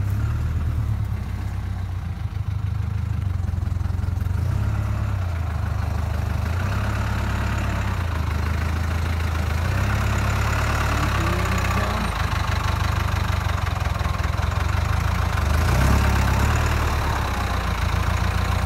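Tractor engine running steadily as its hydraulics hold the raised olive catcher tipped over the trailer to empty it, the engine speed shifting slightly now and then.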